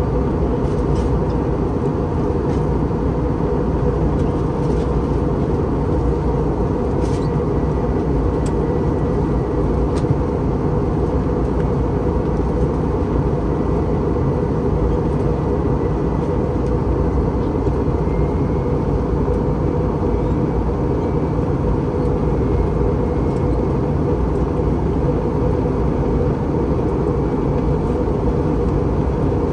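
Steady cabin noise inside an Airbus A321 airliner descending on approach: an even, low rumble of engines and airflow that does not change, with a faint high whine and a few light clicks.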